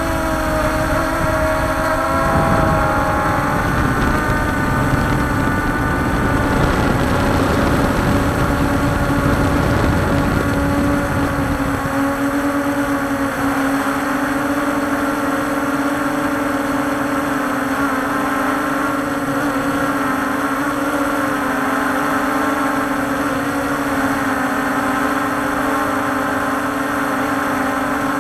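Walkera Scout X4 quadcopter's electric motors and propellers humming steadily in flight, as picked up close by its onboard camera, the pitch wavering slightly as the motors adjust. A low rumble sits under the hum for the first dozen seconds and then drops away.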